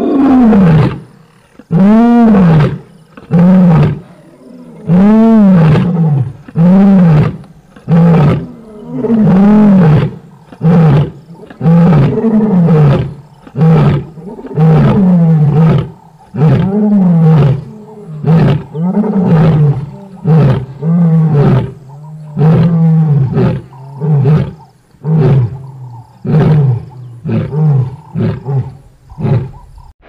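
Lioness roaring in a long bout: a string of calls, each rising and then falling in pitch, about one a second, growing shorter and quicker in the second half as the roars give way to grunts.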